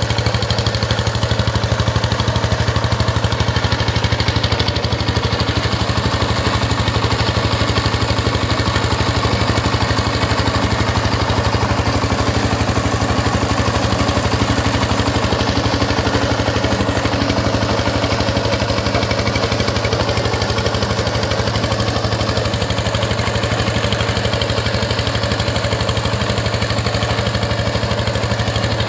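Changchai single-cylinder diesel engine of a two-wheel walking tractor running steadily under load while its rotary tiller works the soil, with an even chugging.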